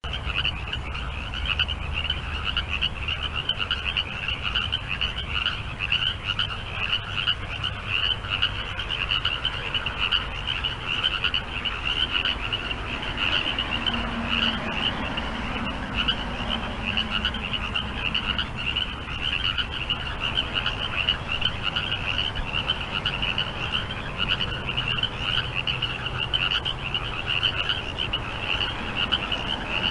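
A chorus of many frogs calling at once: a dense, unbroken mass of rapid, high-pitched pulsing calls, with a low rumble underneath.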